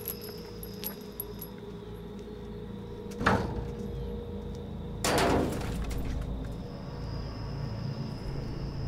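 Two sudden impacts over a steady low rumble: a sharp bang about three seconds in, then a louder, noisier crash lasting about half a second a couple of seconds later.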